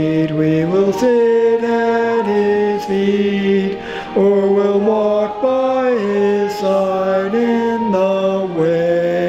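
A man's voice singing a slow melody in long held notes, stepping from pitch to pitch.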